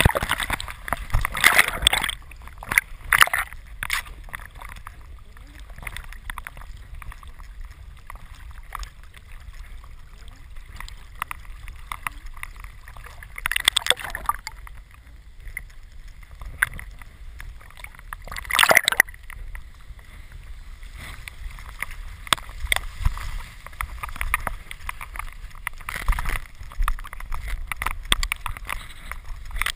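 Water sloshing and gurgling close to the microphone as a Labrador retriever moves through water, over a steady low rumble, with a few louder splashes, two of them about halfway through.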